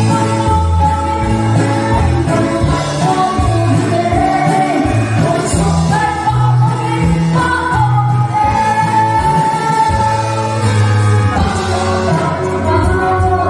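A woman singing a song into a microphone with a live band of drums, electric guitar and keyboard, amplified through a stage PA system, her melody moving in long held notes.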